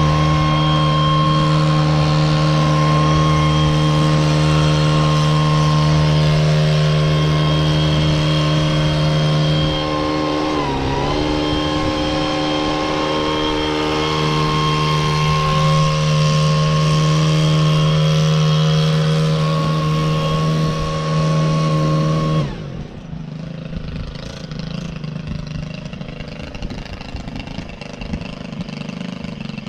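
Blower running steadily at full speed while clearing sawdust off a portable sawmill, dipping briefly in speed about eleven seconds in. It cuts off abruptly about 22 seconds in, leaving quieter background noise.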